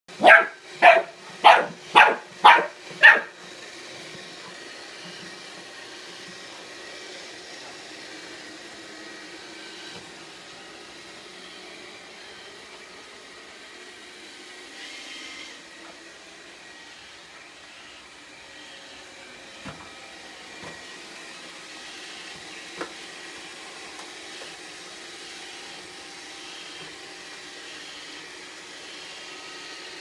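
A small dog barks six times in quick succession, then a Roomba robot vacuum runs with a steady hum, with a few light knocks later on.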